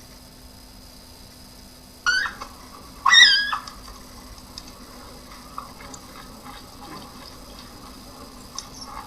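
Two short, high-pitched animal calls about a second apart, the second louder and longer, followed by faint scattered clicks and taps.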